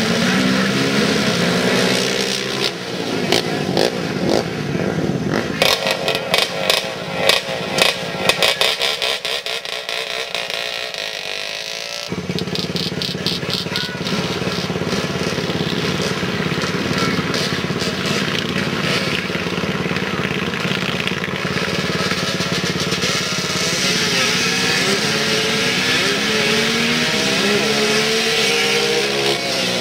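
ATV engines revving and running hard as quads drag race, the engine note climbing and falling as they launch and shift. A spell of sharp crackles comes through the middle, followed by a steady engine drone and more rising revs near the end.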